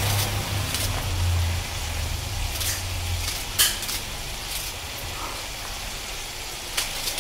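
A knife slicing small red onions held in the hand: a few sharp, crisp cuts, the loudest about three and a half seconds in, over a steady low hiss.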